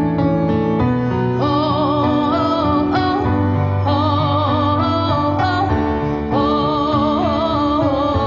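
Slow music: a sung melody with strong vibrato over long held low chords.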